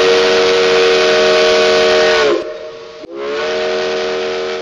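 Multi-tone steam whistle with a hiss of steam, blown twice: a long blast that sags in pitch as it ends about two seconds in, then after a short break a second blast that slowly fades.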